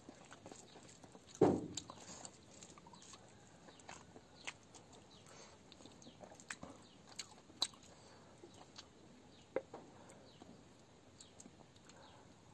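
Close-up eating sounds: chewing, lip smacks and small wet clicks as rice and chicken are eaten by hand, with fingers mixing rice on a steel plate. One louder smack or thump comes about a second and a half in.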